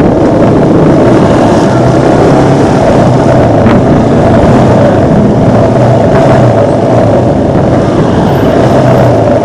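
Motorcycle engine running steadily as it rides along a street, mixed with road and wind noise on the handlebar camera's microphone.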